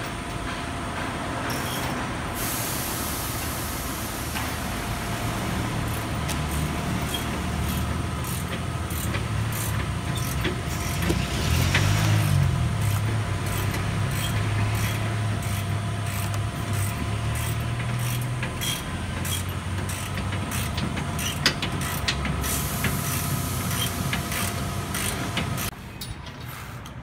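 Steady engine drone of a motor vehicle, its pitch rising and falling once near the middle, with scattered light metallic clicks. It drops away suddenly near the end.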